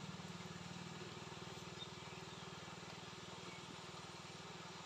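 A small engine running steadily at idle: a low, even throb of fast regular pulses.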